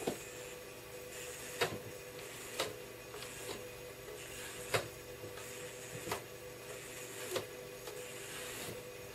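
Small geared DC motors of a homemade RC car, driven through an L293D motor controller, whining steadily as the car is driven in short moves on a desk, with sharp clicks every second or two.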